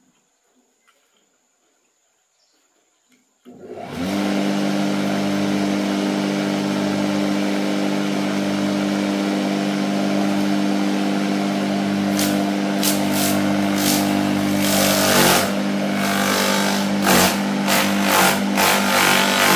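Electric banana-stem chopper switched on about three and a half seconds in, its motor and rotor quickly running up to a steady hum. From about twelve seconds in, banana stem fed into the hopper is shredded with a run of sharp cracks, and the motor briefly labours twice under the load.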